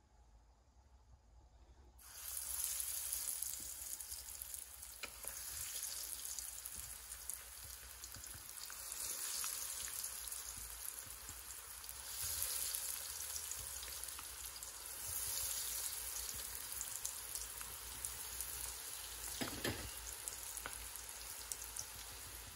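Breaded kebabs deep-frying in hot oil in an iron karahi. The oil bursts into a sizzle about two seconds in as the first kebab goes in, and the sizzle swells again each time more are lowered in. There is one short knock near the end.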